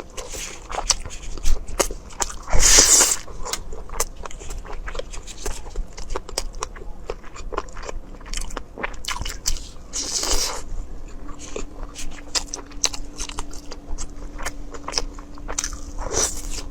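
A person eating close to the microphone: chewing and biting with many sharp, crunchy clicks, and two louder noisy swells about 3 and 10 seconds in.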